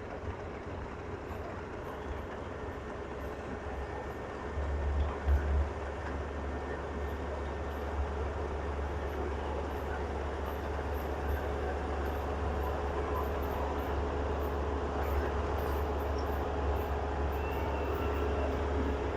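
Kubota rice combine harvester running steadily in the field, a continuous low engine rumble with a steady hum over it, briefly louder about five seconds in.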